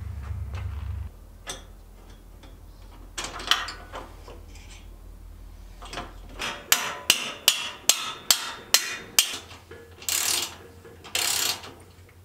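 Socket ratchet wrench clicking as a rear shock mounting bolt is run in on a Puch Magnum moped: first a run of single clicks about three a second, then two quick bursts of rapid ratcheting near the end. A few metal knocks from parts being handled come before it.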